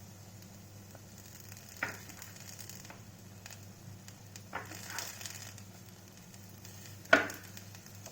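Faint sizzling of semolina pizza batter cooking in a frying pan on a low flame, with three short knocks, the sharpest near the end.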